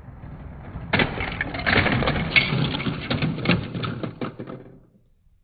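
Lego train crashing into a Lego brick house: a faint rolling noise grows, then about a second in a sudden crash and a few seconds of clattering plastic bricks with many sharp knocks, dying away near the end.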